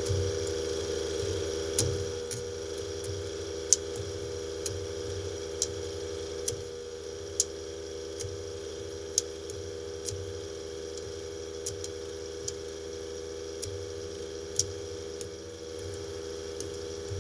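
A steady engine hum running throughout, with sharp short taps or clicks roughly once a second over it.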